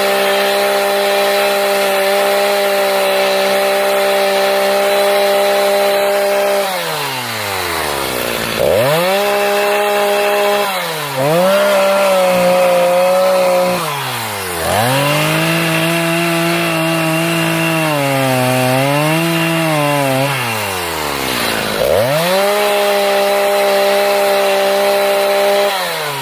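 Stihl Farm Boss two-stroke chainsaw carving wood, run at full throttle with the throttle let off and squeezed again about five times, each time the pitch falling and climbing back. In the middle the pitch sags and wavers for several seconds as the chain bites into the wood under load.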